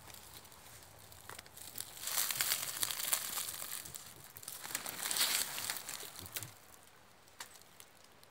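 An armadillo digging into dry soil and leaf litter under a rock: crackly scratching and crunching in two louder spells, easing off near the end.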